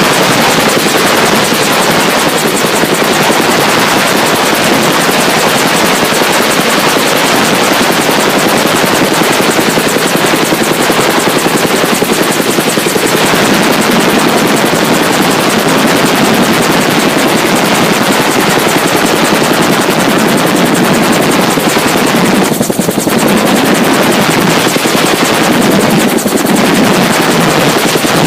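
Helicopter running close, a loud steady rotor and engine noise.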